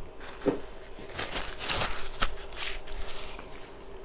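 Close-miked chewing and lip-smacking: irregular wet clicks and smacks, busiest in the middle, with a soft thump about half a second in and a faint steady hum underneath.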